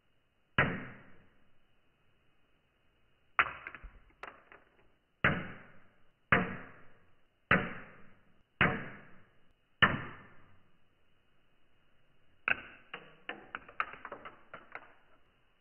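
Dry spaghetti strands snapping under a pressing fingertip, one sharp crack at a time, seven in all, a second or two apart, each trailing off briefly. Near the end comes a quicker run of lighter clicks and taps.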